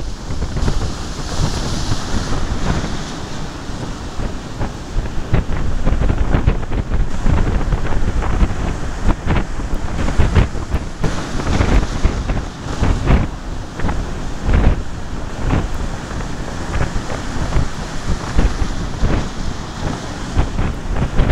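Strong norte gale buffeting the microphone in uneven gusts, over the rush of rough surf breaking.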